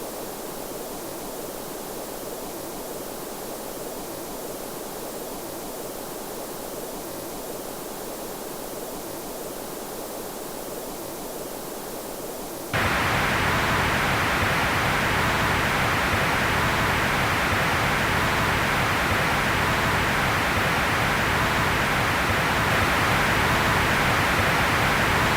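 Steady generated noise, first a dull, muffled hiss, then about halfway through cut abruptly to a louder, brighter hiss like rushing water or static, which holds steady.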